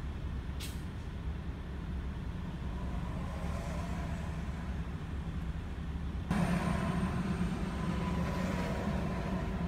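Steady low rumble of idling engines in stalled highway traffic, with a short click under a second in. About six seconds in, the noise suddenly gets louder and fuller.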